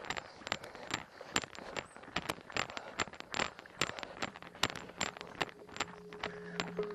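A runner's footsteps crunching on a stony dirt track, quick and uneven, with a light rattle of carried gear. Soft background music fades in near the end.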